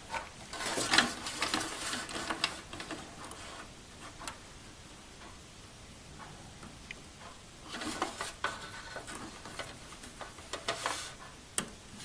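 SATA cables and their plastic connectors being handled and fitted inside a desktop computer's metal case: bursts of light clicks and rattles, in two spells, one in the first few seconds and another starting about eight seconds in.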